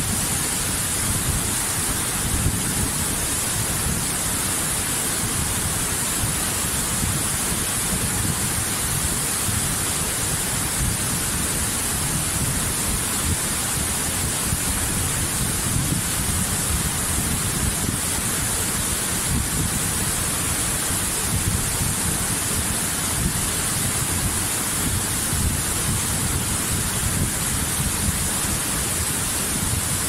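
Waterfall: water cascading down a steep rock face in a steady, unbroken rush with a bright hiss.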